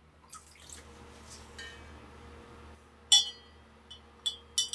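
Small steel gun parts clinking against a glass cylinder as they are lifted out of the liquid, with four sharp clinks in the last two seconds, the first the loudest. Before that, water trickles faintly in the glass.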